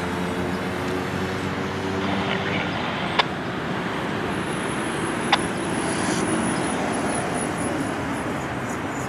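Steady vehicle and road-traffic rumble and hiss, with a low engine hum that fades out a couple of seconds in. Two sharp clicks about three and five seconds in.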